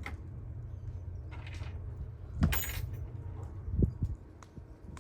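Hand work with tools and metal parts under a vehicle: two short scrapes, a thump about four seconds in, and a few light clicks, over a low steady rumble that stops about four seconds in.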